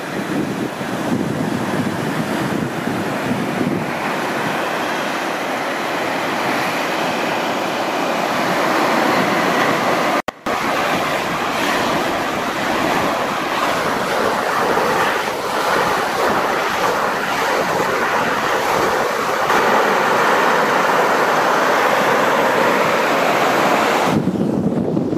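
Surf breaking and washing up a sandy beach in strong wind, with wind buffeting the microphone. The sound cuts out for a moment about ten seconds in.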